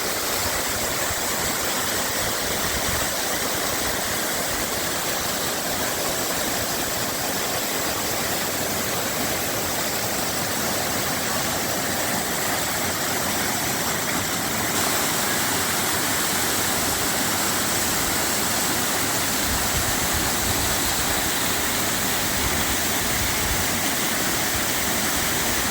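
Waterfall in full winter flow, a loud steady rush of falling water close to the plunge.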